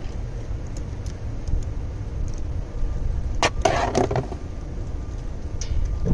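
Scattered metallic clicks and clinks of a ratchet, socket and cable lug being worked at a car battery terminal, with a louder clatter of handling about three and a half seconds in, over a steady low rumble.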